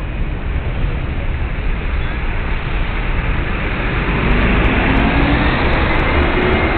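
City road traffic: a steady low rumble of engines and tyres, with an engine note rising in pitch over the last few seconds as a vehicle accelerates.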